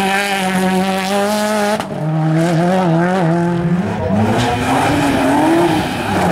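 Rally car engines at high revs on a gravel stage. A Subaru Impreza's engine is held at a steady high note as it passes close, then dips briefly about two seconds in. From about four seconds in, a second car's engine comes up, its pitch rising and falling as the driver works the throttle.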